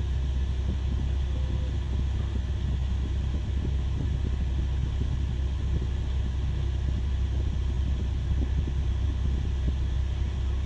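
Steady low rumble of a Caterpillar 6020B hydraulic mining excavator's diesel engine running, with no change in level.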